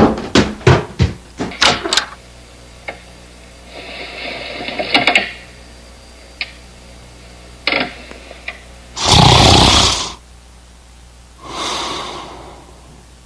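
A quick run of knocks in the first two seconds, then loud breathy snoring, one snore about four seconds in, the loudest near the ninth second and a softer one after it.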